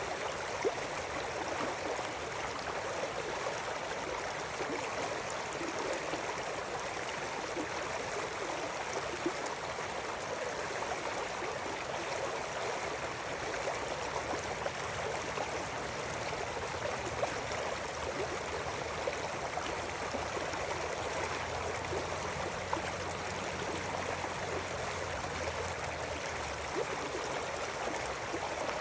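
River water running steadily over rocks, with small splashes scattered through it.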